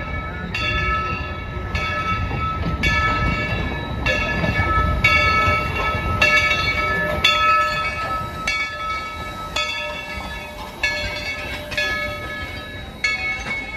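Steam locomotive No. 70's bell ringing steadily, about one strike a second, as the engine passes at slow speed. Under it runs a low rumble of the locomotive and cars.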